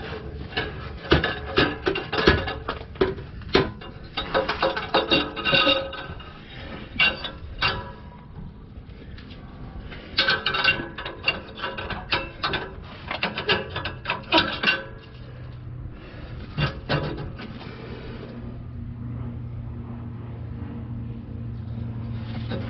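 Metal clanks, taps and scrapes as a replacement catalytic converter is handled and worked into place under a car, the converter and pipe knocking against the exhaust flange. The knocks thin out in the second half, and a steady low hum sets in near the end.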